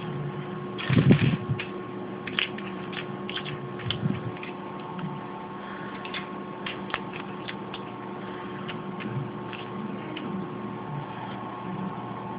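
Spare plastic keycaps and their small packet being handled: scattered light clicks and rustles, with a louder thump about a second in, over a steady electrical hum.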